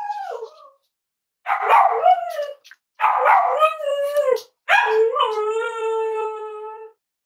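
Cavalier King Charles spaniel howling: four cries that bend up and down in pitch, each longer than the last, ending in one long, steady howl.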